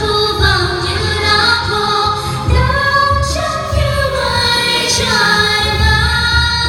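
A woman singing a slow, gliding melody over music with a steady low beat.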